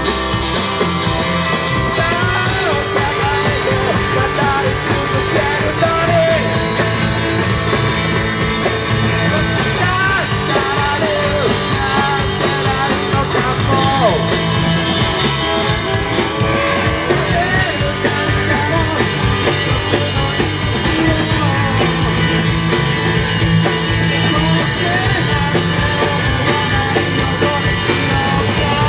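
A live rock band playing a song: electric guitars and drums, with a male singer.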